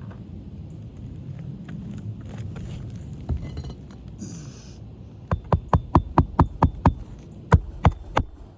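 Hammer driving roofing nails into an asphalt shingle: a quick run of about eight sharp metallic strikes, then two more blows near the end.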